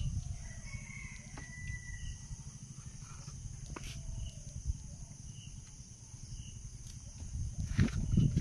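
A man climbing through a bamboo fence: rustling and knocks of the rails, loudest near the end as he steps over. Under it a steady low rumble and a high insect drone, with a distant rooster crowing faintly about a second in.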